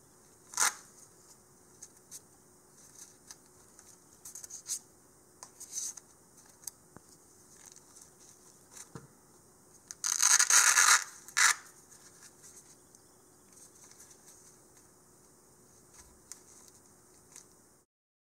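Hands handling a phone with a mesh card-wallet pouch on its back: fingers rubbing and scratching on the case and pouch, with scattered small clicks and taps. About ten seconds in, a louder rasping scrape lasts about a second, followed by a shorter one.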